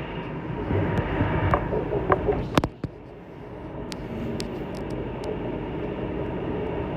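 Running noise of a Sydney Trains Waratah (A set) train heard from inside the carriage, with scattered sharp clicks. A little under three seconds in the noise drops suddenly, then settles into a steadier, quieter rumble.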